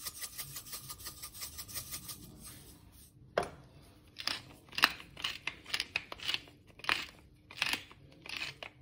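Hand-twisted spice mill grinding seasoning over the pan: a fast run of fine ratcheting clicks, then from about three seconds in, separate louder crunching twists, one or two a second.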